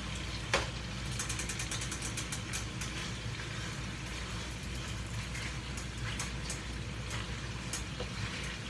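Rabbit pieces sizzling in butter in a pot on the stove as they are turned, with occasional clicks of the utensil against the pot, over a steady low hum.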